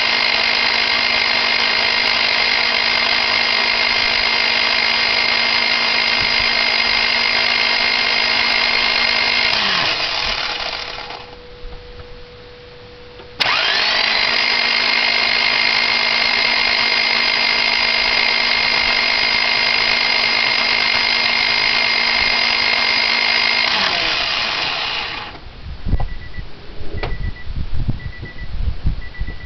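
Honda Civic starter motor cranking the D15 engine in two long spells of about ten seconds each, a steady whine that spins back up after a short pause, without the engine catching. This is the no-start the owner blames on bad gas, cranking as if there were no compression. Near the end come a few knocks and a short repeating beep.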